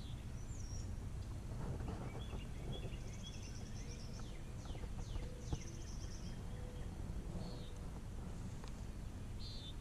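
Small birds chirping and calling at intervals, short high notes and a few quick sliding calls, over a steady low outdoor rumble.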